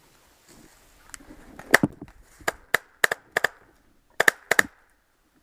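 Paintball markers firing a string of about a dozen sharp pops, irregularly spaced and often in quick pairs, starting about a second in.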